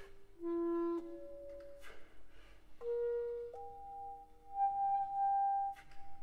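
Clarinet playing a slow solo line of a few long held notes, climbing to a high note held for about two seconds, over a faint sustained lower note.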